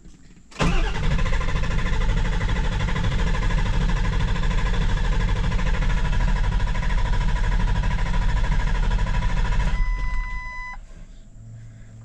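Ford 7.3 Powerstroke V8 turbo-diesel cranking on the starter for about nine seconds without firing: a hot no-start that the owner suspects is a failing high-pressure oil pump. A short electronic beep sounds just after the cranking stops.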